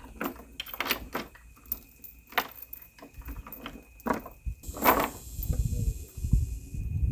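Steel chain clinking and knocking in a string of short, sharp clanks as it is worked into place around a hoist beam, with a brief rattle about five seconds in.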